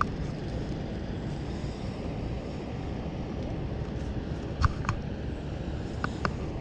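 Steady low rumble of harbour background noise, with a few short sharp clicks a little past halfway and again near the end.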